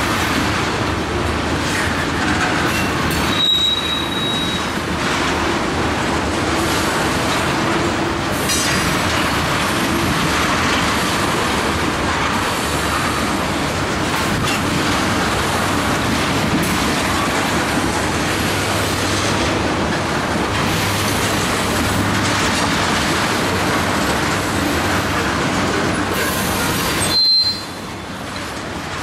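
Freight train of ethanol tank cars rolling past, a steady noise of steel wheels on rail with clicks at the rail joints. Brief high wheel squeals come about three seconds in and again near the end.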